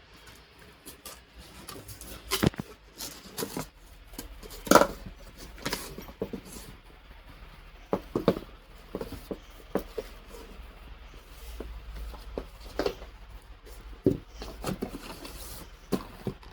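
Irregular clicks and knocks of a tool kit being handled and unboxed, with a sharp knock about two and a half seconds in and the loudest about five seconds in.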